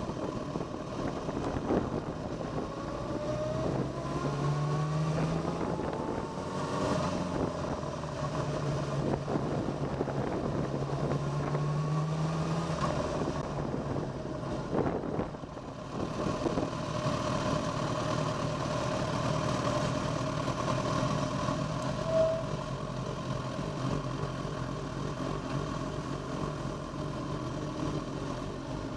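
Motorcycle engine running at speed, rising in pitch in two long pulls in the first half, then holding a steadier tone after a brief drop-off about halfway through.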